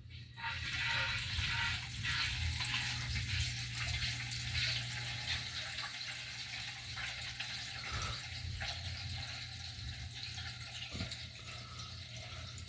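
Water gurgling and hissing through a well system's expansion tank and plumbing at the end of the pump's fill cycle. The noise starts suddenly, then slowly tapers off, over a steady low hum.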